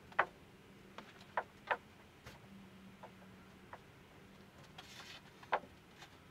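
A few irregular light taps and clicks from hands pressing and patting along the foam camper shell's roof edge and wall corners while checking the fit, with a soft rustle about five seconds in. A faint steady hum runs underneath.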